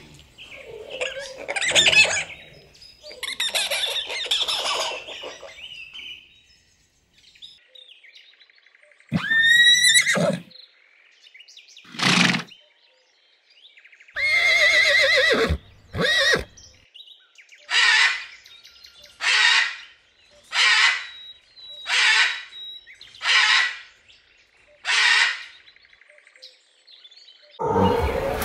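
Gibbons chattering and squeaking for the first few seconds, then horses whinnying, with a rising squealing call and a longer neigh. After that comes a run of eight short, harsh calls about a second and a half apart, and a dog starts barking at the very end.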